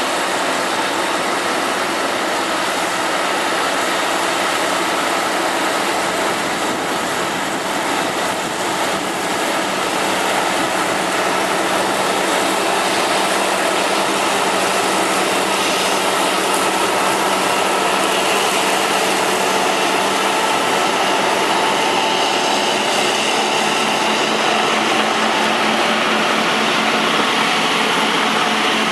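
John Deere 7760 cotton harvester, converted to a cotton stripper with dual burr extractors, running steadily: a constant mechanical drone with a steady low hum under it.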